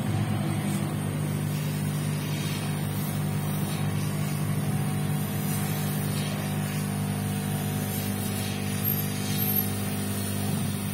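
Hot air gun blowing steadily: a fan hum with rushing air, heating the phone's display to soften its adhesive.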